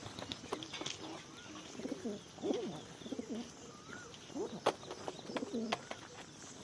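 Pigeons cooing in short, repeated low phrases, with a few sharp clicks and a faint high chirp among them.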